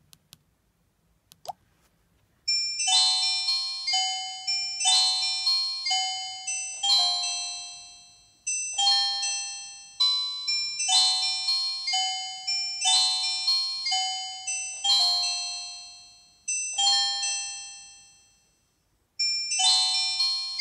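Nokia 105 (2019) ringtone playing through the phone's speaker: a melody of bright, bell-like chiming notes in repeating phrases. It starts about two and a half seconds in after a couple of faint clicks, fades away near the end and then begins again.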